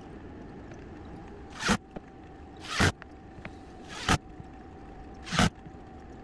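Footsteps in flip-flops on a plywood subfloor: four brief scuffing steps about a second apart, over a faint steady hum.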